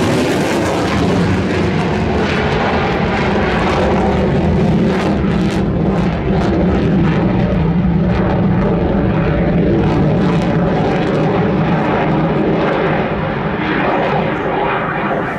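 Boeing F/A-18F Super Hornet's twin General Electric F414 afterburning turbofans: loud, steady jet roar from a jet flying a display. The high hiss thins out near the end.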